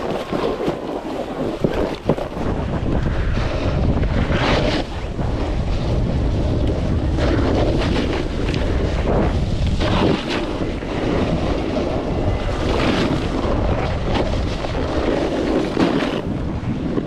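Wind buffeting the microphone of a snowboarder's POV camera while riding downhill, a loud steady rumble, with the board's edges scraping and chattering over icy snow in rasping surges.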